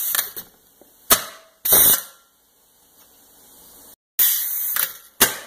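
Pneumatic french fry cutter's SMC air cylinder cycling, twice: loud bursts of compressed-air hiss from the valves, each with a sharp clack as the cutter's stroke ends.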